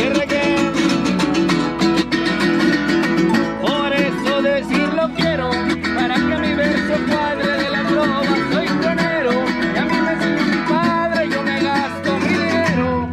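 Live son jarocho: an arpa jarocha plucked together with strummed jaranas, and a man singing over them.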